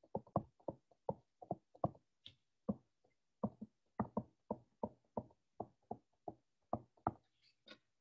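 Stylus pen tapping and knocking on a tablet touchscreen while numbers are handwritten. It is a run of short, irregular taps, several a second, with a brief pause about three seconds in.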